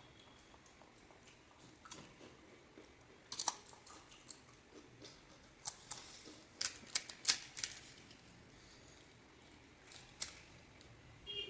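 Sharp, crisp cracks and crunches of hollow fried puri shells being cracked open and bitten. They come singly and in a quick cluster in the middle, against a faint background.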